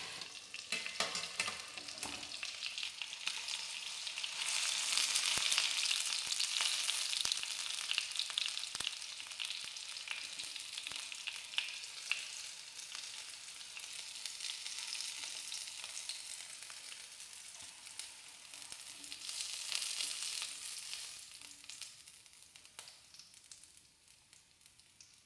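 Boneless chicken pieces in a spiced marinade sizzling and crackling as they fry in oil. The sizzle swells twice and fades toward the end, with a few light clicks from stirring.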